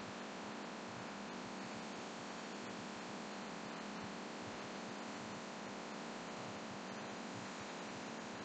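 Laminar flow hood's blower fan running: a steady rush of air noise with a low hum, and a few faint ticks over it.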